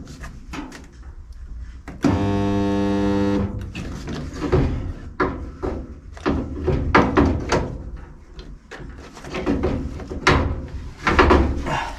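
Resistance spot welder firing once: a steady mains buzz lasting about a second and a half as it makes a single spot weld to pin a steel repair panel in place. Clicks and knocks of the welder tongs and panel being handled come before and after it.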